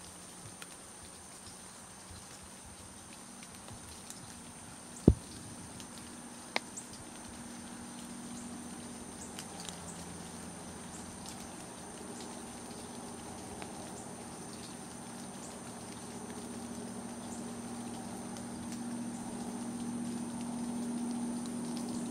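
Insects keep up a steady high drone, broken by a sharp knock about five seconds in and a smaller one a second and a half later. A low hum grows louder toward the end.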